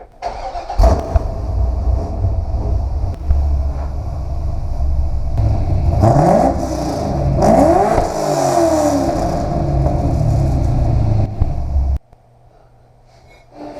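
C5 Corvette's V8 engine running loud through its exhaust, revving up and down several times in the middle. It cuts off suddenly near the end.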